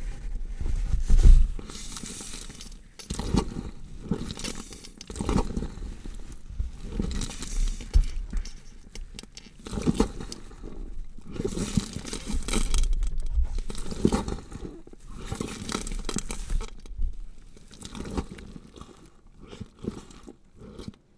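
Horror sound effect of a body being dissected: irregular bursts of tearing, crunching and scraping. The loudest burst comes about a second in, and the bursts fade near the end.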